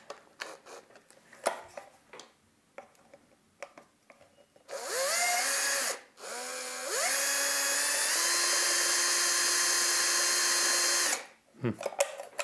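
Bosch cordless drill-driver spinning a screwdriver bit in a screw on a plastic foot-pedal housing. After a few small handling clicks it runs in a short burst, then starts again, its whine climbing in pitch to a steady high speed for about three seconds before cutting off. The screw does not come loose.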